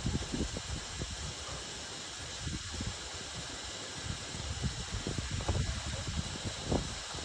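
Whirlpool FSCR 10425 washing machine running a wash: irregular low thuds and swishes of laundry tumbling in the turning drum, over a steady hiss.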